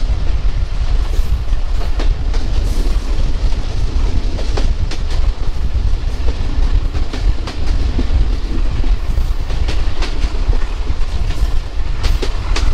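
Local passenger train running on the rails, heard from on board: a steady heavy rumble with sharp clacks at uneven intervals as the wheels cross rail joints.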